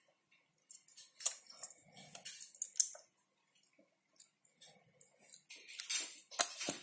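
Handling of a Ricoh 500G 35 mm rangefinder camera in cotton-gloved hands: cloth rubbing on the metal body and small, irregular clicks of its parts, with two sharper clicks near the end.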